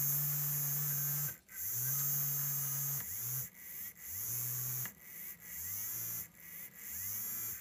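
Small DC hobby motor of a breadboard wiper circuit whirring in about six short runs of one to two seconds, each starting with a rising whine and stopping abruptly before the next. The stop-start is the 555 timer and motor driver switching the motor between clockwise and anticlockwise, sweeping the wiper arm back and forth.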